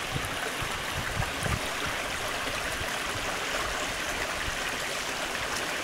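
Small woodland stream flowing, a steady even rush and gurgle of running water.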